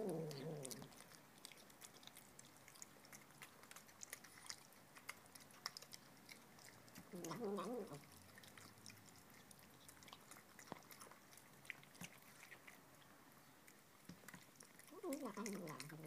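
Tonkinese kitten eating wet food from a bowl, giving short, human-sounding vocal noises as it eats: three calls about seven seconds apart, the last one falling in pitch. Between the calls there are small wet chewing clicks.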